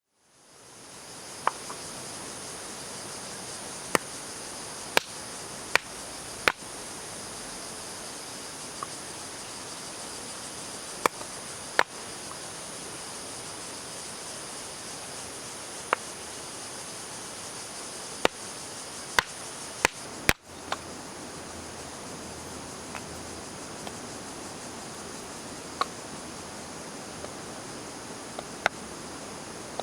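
Wood fire crackling in a stainless-steel firepit, with sharp pops coming at irregular intervals over a steady high insect chirring.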